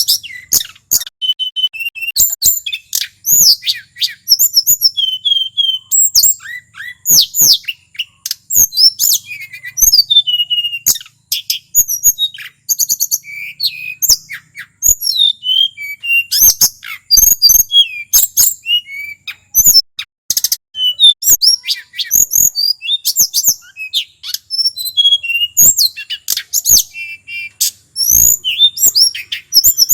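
A male tledekan gunung, a blue flycatcher, singing a long run of rapid, varied whistled phrases and trills with hardly a pause, the full 'ngeroll' song used to provoke other flycatchers. Sharp clicks are scattered through the song.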